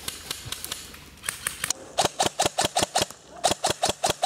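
Airsoft gun firing in two quick strings of sharp shots, about seven a second. The first string starts about two seconds in, and the second follows after a short pause. A few fainter single shots come just before.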